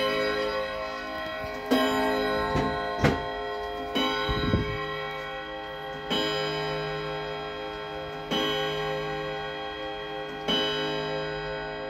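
Eight-rod carillon wall clock striking the hour on its gong rods. A few close strikes come first, then single slow strikes about every two seconds, each ringing on and fading, while the movement ticks steadily underneath.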